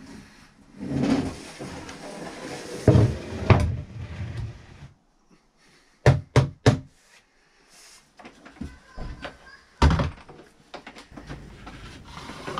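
Knocks and thuds of a heavy oak slab being handled on a wooden workbench, with three quick sharp knocks about halfway through and a heavier thud a few seconds later.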